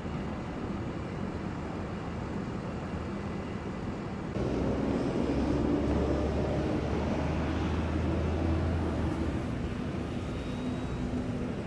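City street traffic: a steady road hum. About four seconds in it gets louder, with a low engine hum from a vehicle close by for several seconds before easing off.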